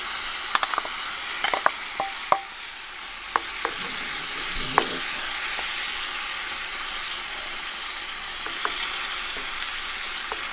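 Chicken and coconut-milk sauce sizzling in a cast iron skillet, a steady hiss, while diced mango is tipped in and stirred with a wooden spoon, giving scattered clicks and knocks against the pan, most of them in the first few seconds.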